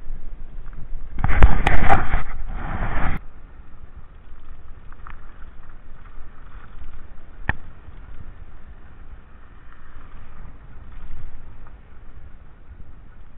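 Mountain bike riding over a gravel dirt track, picked up by a handlebar-mounted camera: steady rumble and rattle of tyres and frame. About a second in there is a loud rough burst of noise lasting about two seconds, and past the middle a single sharp click.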